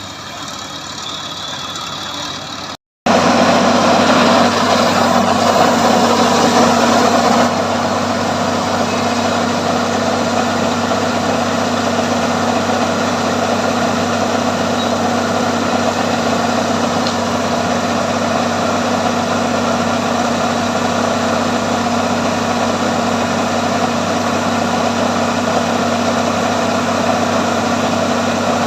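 Combine harvester engine running steadily with an even hum. About three seconds in the sound cuts out for a moment, then comes back louder and closer, and eases back a little a few seconds later.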